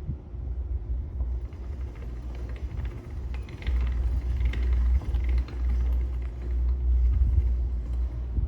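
A restored 1930s Alexanderwerk knife cleaner being cranked by hand: its mechanism turns with an uneven low rumble. Light scraping and clicking join in from about halfway through.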